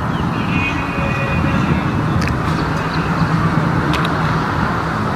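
A car engine running with a low, steady rumble, with faint high tones over it in the first second or two and a few light clicks.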